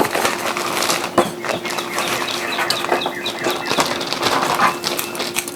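Plastic bag being handled, crinkling with many small clicks and a few short high squeaks, over a steady low hum.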